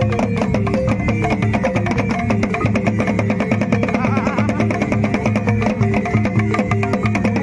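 Live drumming on a large barrel drum beaten with sticks, with a wooden xylophone playing quick stepped notes over a steady, fast beat.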